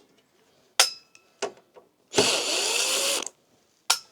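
A handheld power drill/driver runs in one burst of about a second, its pitch bending up and then down, with metallic clicks and a short clink before and after it. This is typical of screws being driven out while the diesel heater is taken apart.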